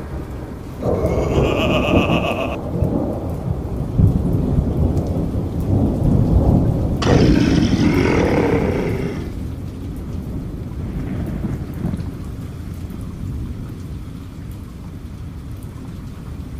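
Thunder rumbling over steady rain, swelling about a second in and again around seven seconds in, then slowly dying down.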